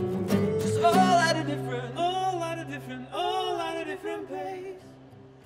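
Two acoustic guitars strumming a chord about a second in and letting it ring under a man's sung melody. The playing fades away toward the end.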